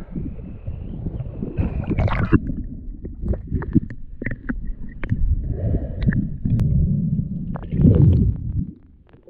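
Sea water sloshing and gurgling around a diver's camera as he goes under from the surface, then a muffled underwater rumble with scattered clicks and bubbling. It drops suddenly quieter near the end.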